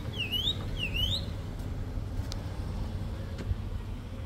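A bird calling with quick whistled notes that dip and rise again, two of them in the first second, over a steady low rumble.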